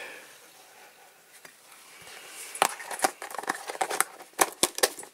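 Small parts of a diecast toy model being handled on a work surface: a quiet start, then a run of light, uneven clicks and taps from about halfway through.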